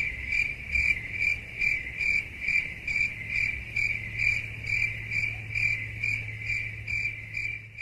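Cricket chirping sound effect: a high, even chirp repeating a little more than twice a second, over a faint low hum.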